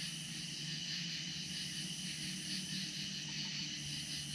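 A steady chorus of night insects with a faint regular pulsing, over a low steady hum.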